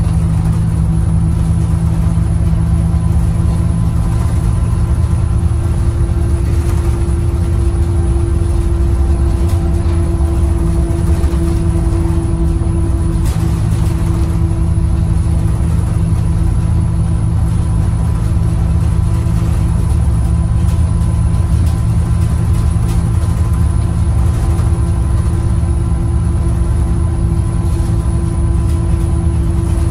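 Cabin noise of a 2007 IC CE200 school bus driving, heard from the back seats: a steady, loud drone from its Navistar VT365 V8 turbo-diesel together with road noise. The engine has three freshly replaced fuel injectors.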